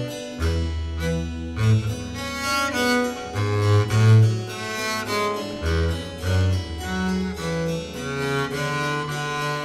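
Baroque music played on cello with harpsichord: a held bass line changing note every second or so under a moving melody.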